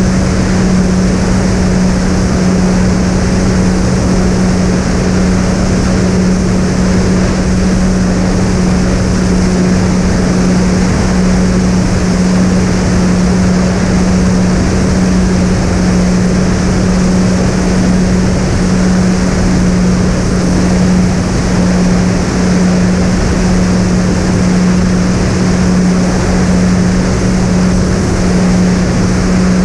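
Twin SunnySky 2212 980 kV brushless motors spinning three-blade 7x4 propellers, giving a loud, steady hum at one constant pitch over a rush of air noise.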